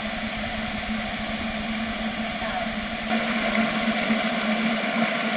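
Rushing river rapids: a steady hiss of flowing water, a little louder from about three seconds in, over a steady low hum.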